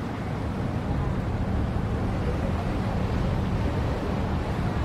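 Steady low drone of a boat engine over an even rush of wind and water.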